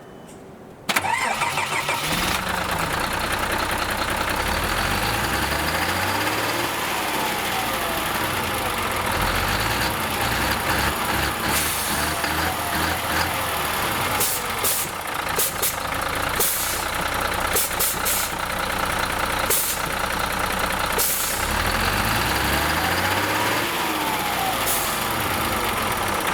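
Nissan Diesel Space Arrow coach's diesel engine cranking and catching about a second in, then running at idle, its revs rising and falling twice. Short hisses come and go over the running engine.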